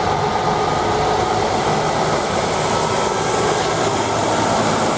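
Steady rush of running water as a toy cement mixer truck is rinsed clean.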